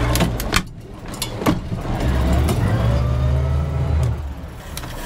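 Boat engine running at low revs. Its hum fades about half a second in, comes back strongly about two seconds in with a faint rising and falling whine, and eases off again near the end, as the throttle is backed off and reapplied while manoeuvring around a hooked fish. A few sharp knocks sound over it.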